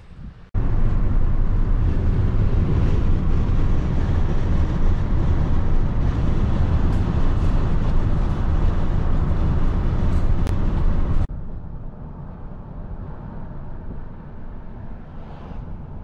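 Vehicle on the road: a loud, steady rumble of engine and road noise that stops suddenly about eleven seconds in, giving way to a quieter steady rumble.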